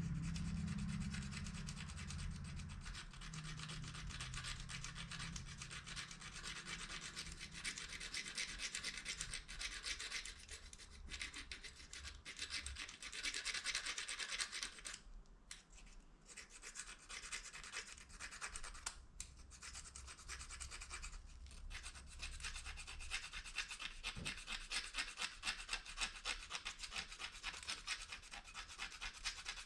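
Plastic fork rubbed rapidly back and forth against the edge of a plastic spoon, a fast scratchy rasping, pausing briefly twice a little past the middle. The friction is heating the plastic.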